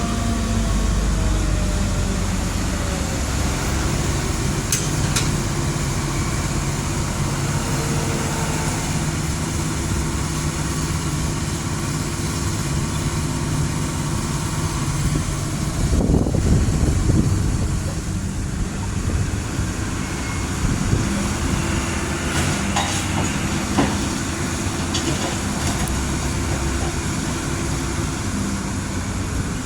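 Heavy diesel truck-and-trailer rigs running and moving, a steady engine rumble with rattling from the bodies and trailers, and a louder surge about halfway through.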